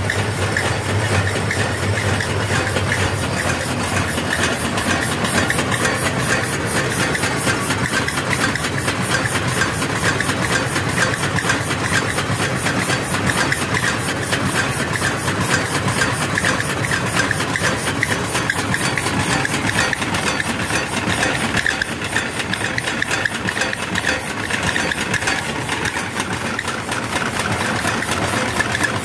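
Homemade Stirling engine running steadily, its pistons, crank and flywheel making an even, fast repeating mechanical beat.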